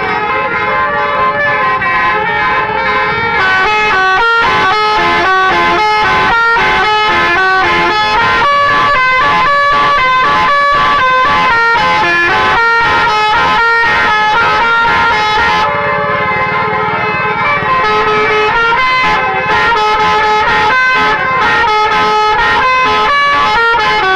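Bus 'telolet' musical horn, a set of electrically switched air-horn trumpets, playing a tune in quick stepped notes with several pitches sounding at once.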